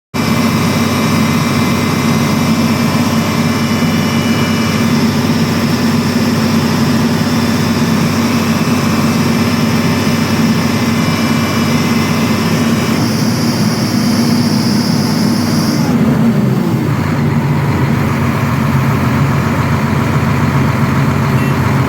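Doosan DX300LCA excavator's diesel engine running after its hydraulic pump rebuild, held at a steady higher speed and then settling to a lower, deeper speed about sixteen seconds in.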